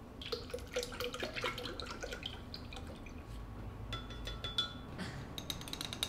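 Coconut milk pouring from a carton into a glass blender jar, then several clinks of a metal spoon against the glass with a brief ringing.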